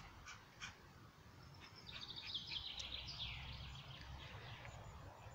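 A songbird singing one faint phrase of rapid notes that step down in pitch over about two seconds, over a low steady rumble.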